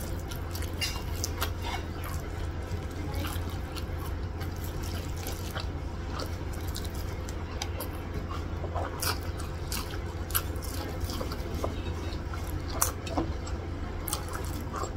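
Eating by hand: chewing and mouth clicks as rice and curry are eaten, heard as many short, sharp clicks scattered irregularly over a steady low hum.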